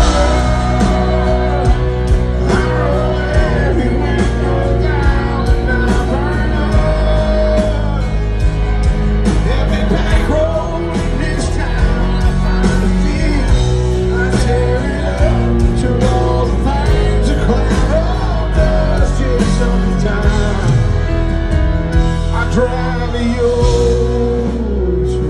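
Live country band playing loudly through a PA: drums, bass and guitars, with a man singing the lead vocal.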